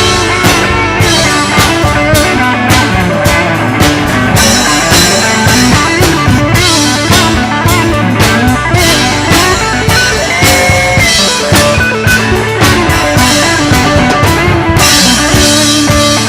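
Live country band playing an instrumental break, with a guitar lead over drums.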